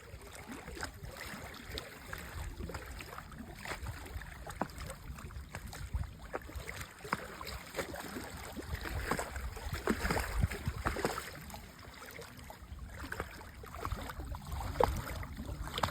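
Lake water lapping in small, irregular splashes, a little louder around the middle.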